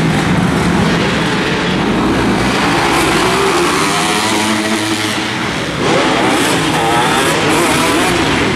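Several motocross dirt bikes racing together, their engines revving up and down again and again as the riders throttle through the jumps and turns, inside an indoor arena.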